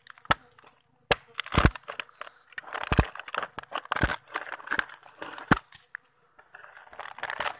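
Bolo knife chopping into a rotten coconut palm trunk: several sharp blows at uneven intervals, with crunching and crackling of the soft, crumbling wood as the trunk is broken open.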